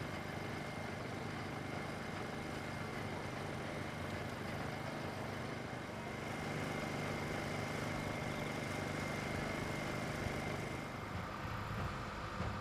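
An engine running steadily at an even speed, with a thin high whine over it that drops to a lower pitch near the end.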